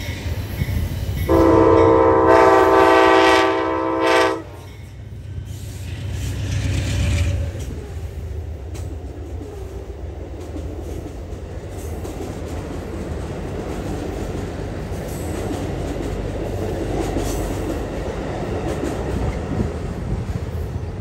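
Amtrak passenger locomotive's multi-note air horn sounded once, held for about three seconds starting a second in. After it, steady wheel and rail noise as the passenger train and a double-stack container freight pass each other on adjacent tracks.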